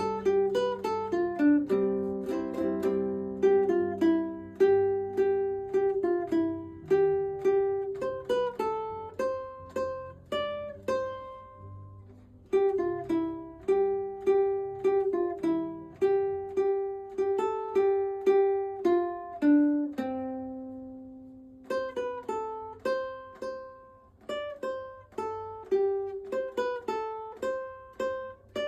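Instrumental background music: a melody of plucked notes on a ukulele-like string instrument, with no singing and a short break about twenty seconds in.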